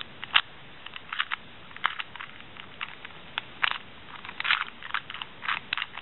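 LanLan 2x2 speed cube being turned fast by hand: irregular plastic clicks and clacks as the layers snap round, some coming in quick runs.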